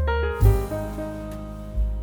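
Instrumental background music with piano-like keyboard notes over a bass line.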